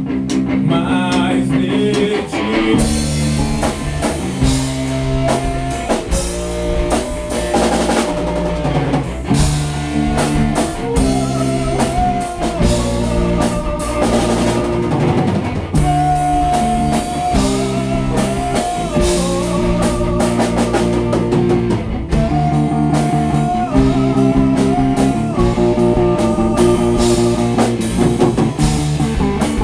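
Gospel rock band playing: a melodic guitar line over bass and rhythm guitar, with the drum kit coming in a few seconds in.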